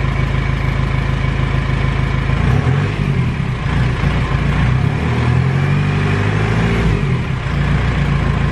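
Cummins R2.8 four-cylinder turbo-diesel idling, raised above idle for about five seconds starting a couple of seconds in, then settling back to a steady idle.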